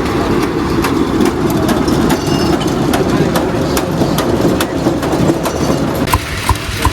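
Loud, steady running of a heavy engine, most likely a pulling tractor working under load. About six seconds in it cuts to the evenly spaced exhaust beats of a small stationary engine, about three a second.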